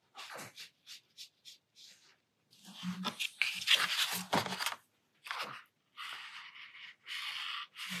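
A sheet of watercolour paper being slid and turned on a desk, with a louder scraping rustle about three to four seconds in, and short scratchy strokes of a pen drawing on the paper.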